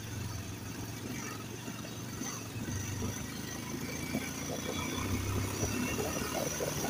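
Motorcycle engine running at low speed over a rough, unpaved road, with knocks and rattles from the bumps that come more often in the second half.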